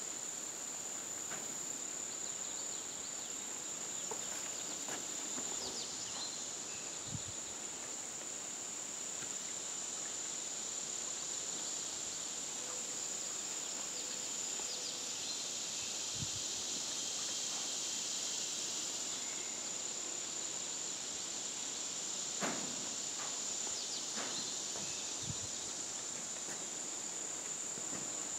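A steady, high-pitched chorus of insects, with a few soft knocks now and then.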